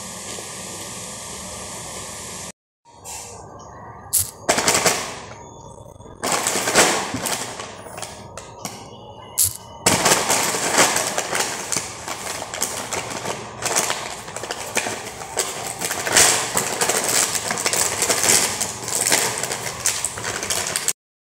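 Plastic snack packet crinkling and rustling as it is handled: irregular sharp crackles at first, turning into dense continuous crinkling from about ten seconds in.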